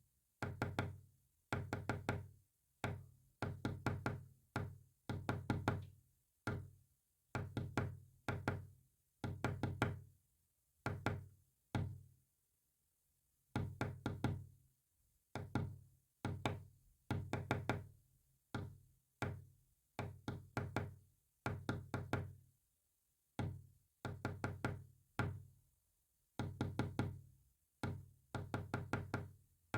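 Morse code played as a rapid string of low, knock-like tones, some short and some longer, grouped into letters with brief pauses between them.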